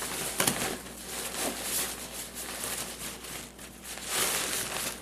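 Rustling of nylon pack fabric and stuff sacks as gear is dug around in and pulled out of a backpack, with a few soft knocks and scuffs.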